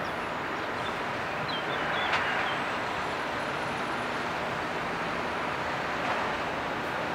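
Steady din of diesel lorries driving off a ferry's stern ramp and across the quay, with one short sharp knock about two seconds in.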